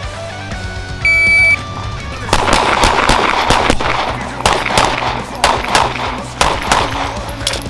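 An electronic shot timer beeps once, about a second in, for half a second. About a second later a pistol opens fire in rapid strings of shots that run on to the end, each shot trailing a short echo.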